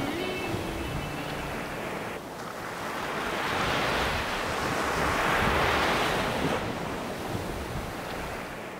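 Sea waves washing in and out around shoreline rocks, swelling twice, with wind on the microphone. The last notes of a music track die away in the first second.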